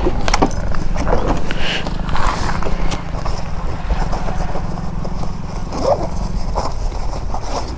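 Motorcycle engine idling with an even low thumping, with a few short knocks and clicks over it.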